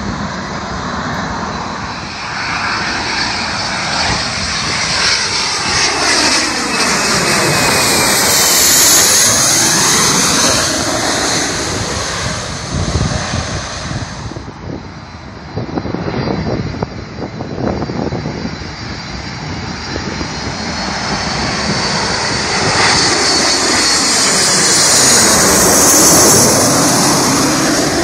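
Jet airliner on landing approach passing low, its engine roar swelling and then fading. A second jet's engine noise builds loudly toward the end as it comes in nearly overhead.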